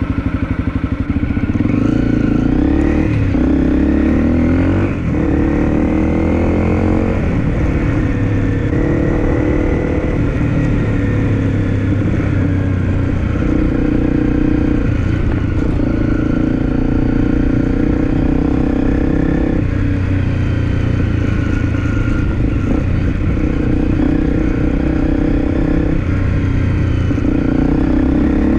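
Honda CRF250L's single-cylinder engine running under way, heard close to the exhaust, its revs rising and dropping in steps several times as the bike is ridden.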